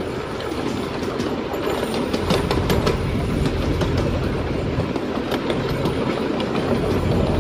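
Train rolling along its track: a steady rumble with the wheels clicking over rail joints.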